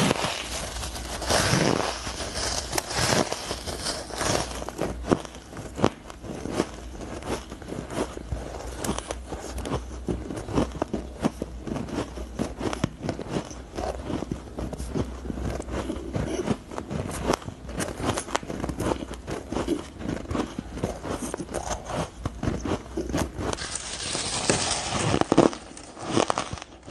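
Close-miked crunching and crackling of powdery frozen ice being bitten and chewed, with irregular crisp crackles throughout as it is handled and crumbled. A loud bite into a large fluffy lump of ice comes near the end.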